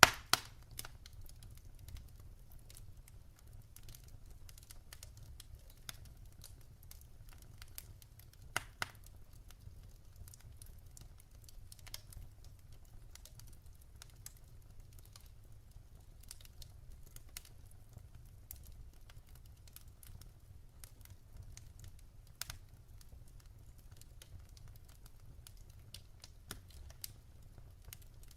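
Wood fire burning in a fireplace, crackling and popping irregularly over a low steady rumble, with a few louder pops near the start, about eight seconds in and about twenty-two seconds in.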